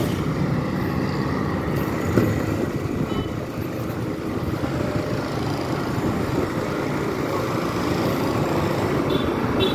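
Motorcycle engine running steadily while riding through city traffic, with road and wind noise.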